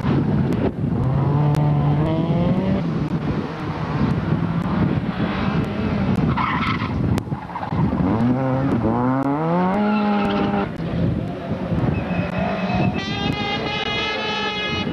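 Rally cars, a Honda Civic first, taking a corner flat out one after another. Their engines rev up and down through the gears, and tyres skid on grit-strewn tarmac. The engine note climbs steeply about eight seconds in as the second car accelerates away.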